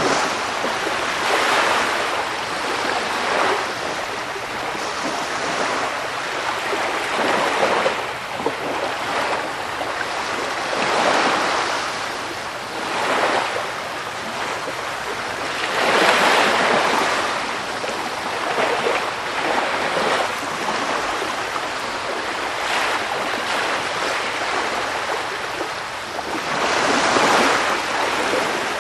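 Sea surf: waves washing in and breaking, the rush of water swelling and falling every few seconds, loudest about halfway through and near the end.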